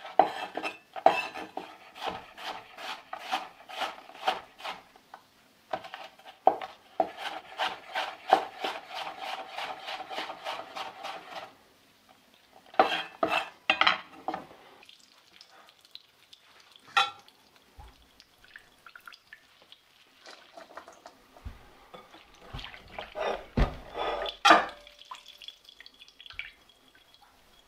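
A chef's knife slicing on a wooden cutting board in quick, even strokes, about three or four a second, stopping about eleven seconds in. A shorter run of cuts follows, then scattered knocks and handling of kitchen bowls, the loudest a sharp knock near the end.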